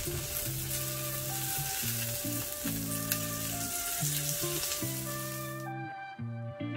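Food frying in a pan: a steady sizzle that cuts off sharply near the end, over background music.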